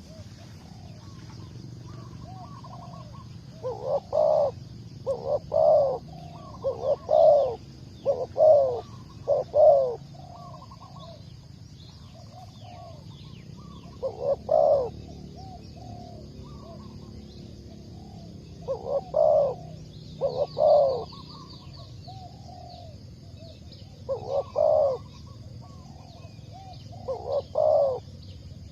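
Spotted dove cooing loudly: coo phrases repeated again and again, the strong ones coming in runs of several with softer coos between.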